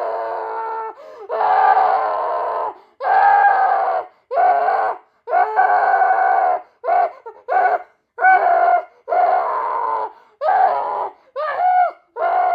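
A boy screaming and wailing over and over in a stock misbehaving-child sound effect: a string of loud, high-pitched cries, some long and drawn out, others short, with brief breaks between them.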